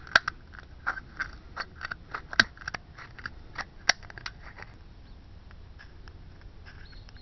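Scissors cutting through a thin plastic container, a quick run of sharp snips and crackles of the plastic that stops about four and a half seconds in.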